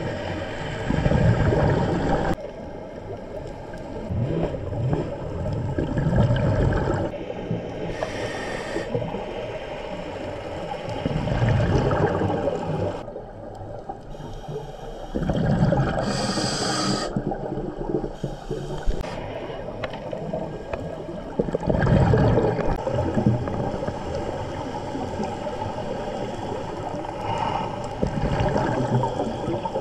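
A scuba diver breathing through a regulator underwater: exhaled bubbles rumble and gurgle in surges every few seconds, with a brief hiss of inhalation between them.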